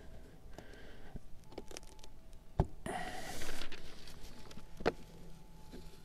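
Handling noise at a snow-covered beehive: snow brushed off the hive lid and newspaper rustling, with sharp knocks about two and a half and five seconds in and a louder rustle just after three seconds.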